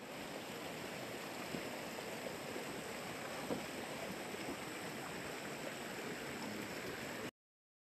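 Steady rush of a shallow rocky stream flowing, cutting off abruptly near the end.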